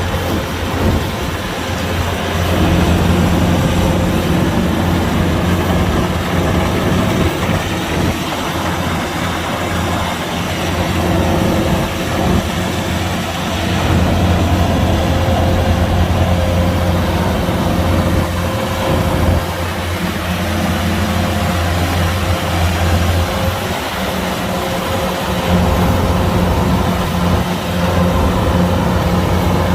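Kubota DC-105X combine harvester's diesel engine and threshing machinery running, a steady low hum over a broad mechanical rattle that swells and eases every few seconds as it works.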